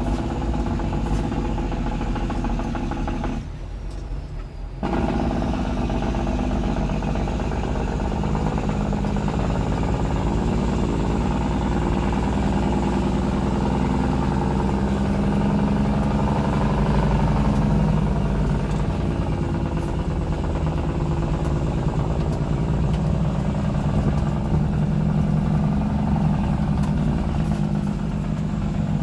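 Truck engine running steadily under way, heard from inside the cab on a gravel road, with a short dip in level about four seconds in before it picks up again.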